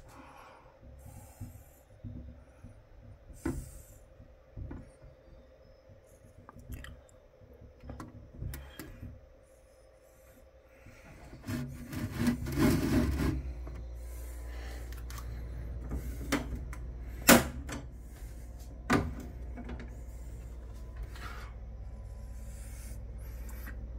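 Handling noise from a clear plastic critter keeper and a mesh-lidded tank: scattered rubs, scrapes and clicks. There is a louder stretch of scraping about halfway through, then a steady low rumble with two sharp clicks near the end.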